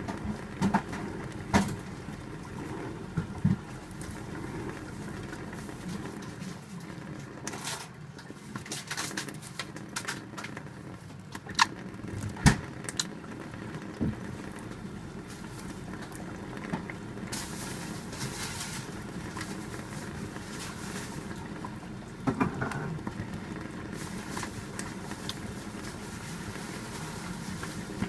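A budgerigar bathing under a stream of running water: a steady splashing wash of water with sharp, sudden splashes now and then.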